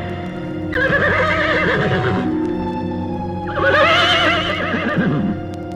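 A horse whinnying twice, each whinny wavering and falling in pitch, over sustained eerie background music.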